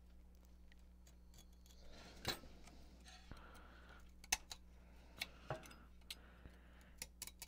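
Hobby knife cutting through a subwoofer driver's tinsel leads and fabric spider: irregular sharp snicks and clicks, with a quick cluster near the end.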